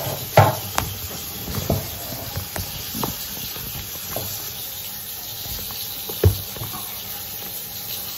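Bathroom sink tap running in a steady hiss, with several short knocks and bumps, the loudest about half a second in and again about six seconds in.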